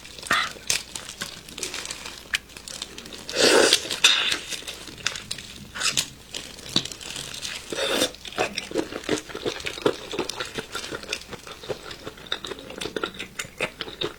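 Raw marinated prawns being handled and eaten close up: shells crackling and tearing as they are peeled, with crunching. The loudest bursts come about three and a half seconds in and near eight seconds, followed by a run of small rapid clicks.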